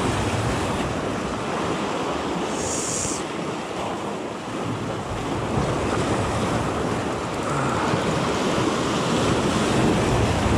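Sea waves washing with wind buffeting the microphone, a steady noise throughout. A short high hiss comes about two and a half seconds in.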